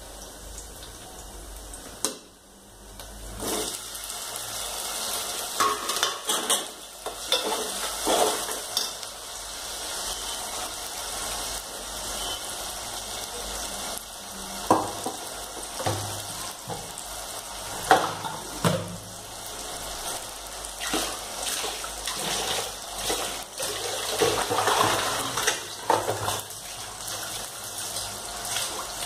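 Steel kitchen dishes and utensils clinking and knocking off and on, sharpest about 15 and 18 seconds in, over a steady background hiss.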